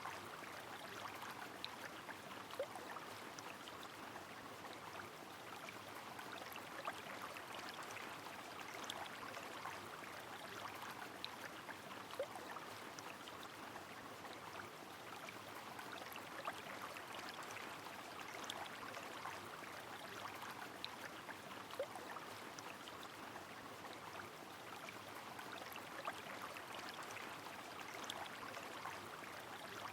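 Steady rain on a flowing river: an even wash of water noise dotted with scattered raindrop ticks and an occasional drip plink.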